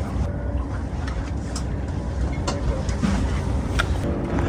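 Steady low rumble of wind and water noise on an open boat, with a few faint clicks and knocks. A low steady hum joins near the end.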